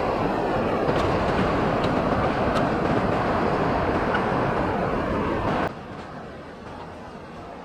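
Portable high-pressure jet cleaner running and spraying water, a steady loud hiss that cuts off suddenly a little over five seconds in, leaving a quieter background hum.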